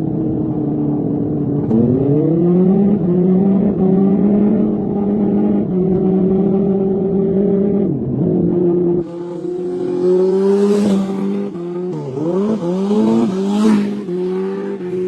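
Kawasaki ZX-4R inline-four motorcycle engine running at high revs, its pitch dropping and climbing again several times. About nine seconds in, the deep rumble thins out and a hiss comes in.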